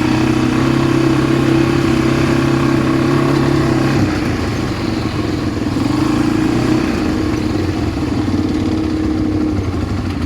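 ATV engine running while riding, with rough rushing noise throughout. The engine note drops off about four seconds in and picks up again around six seconds, as the throttle is eased and reopened.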